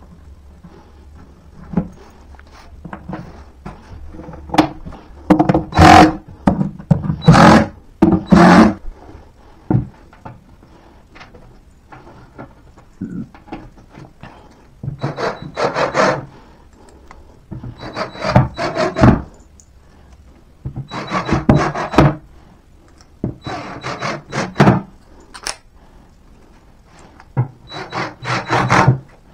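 Cordless drill-driver driving screws into particleboard furniture panels in separate bursts of a second or so, about five times in the second half. Several short knocks and the handling of panels come earlier.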